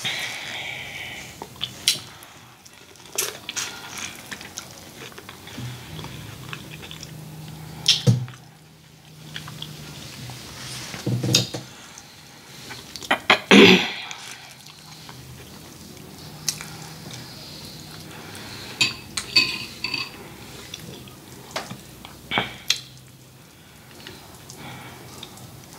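Close-miked eating sounds from corn on the cob in sauce: chewing and smacking, with scattered clicks and clinks of dishes. A single loud burst comes about halfway through.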